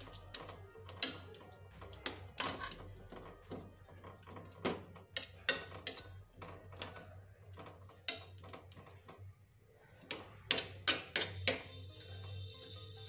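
Stainless steel spatula clinking and scraping against a steel plate as it spreads and presses a thick semolina mixture smooth: irregular metal taps and knocks, a short lull past the middle, then a quick run of taps.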